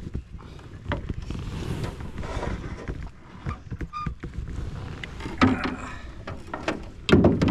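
Irregular knocks, clicks and rustling as a freshly landed rainbow trout is handled and laid on a fish-measuring board in a plastic kayak, with a louder thump near the end.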